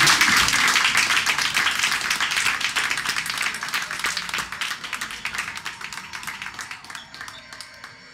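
Audience applauding, a dense crowd of hand claps that gradually fades.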